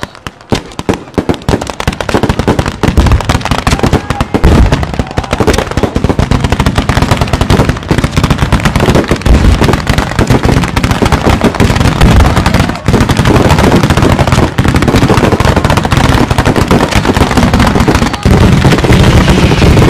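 Ground-level firecrackers going off in a dense, rapid barrage of bangs that merge into a continuous crackle. It builds up over the first few seconds and grows heavier near the end.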